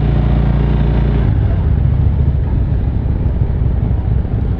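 Harley-Davidson touring motorcycle's V-twin engine running at low road speed, heard from the rider's seat with wind on the microphone. It hums steadily at first, then about a second in turns to a rougher, uneven rumble.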